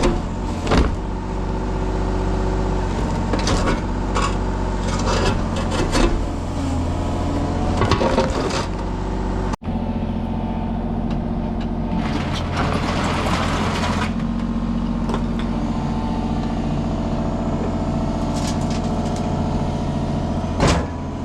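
Construction machine's engine running steadily while it works broken concrete, with scattered knocks and clanks, and a scraping, crunching rush part way through.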